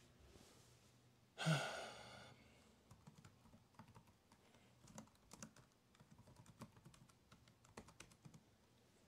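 A person sighs about a second and a half in, then computer keyboard keys click in short irregular runs as commands are typed.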